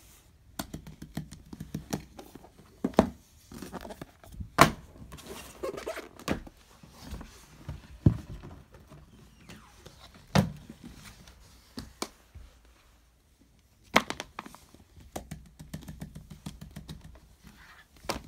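Paperback books being handled and moved about on a table: a string of knocks and thumps with rustling in between, and a short lull about two-thirds of the way through.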